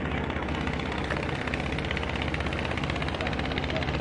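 Ship's engine running steadily: a low drone with a fast, even throb.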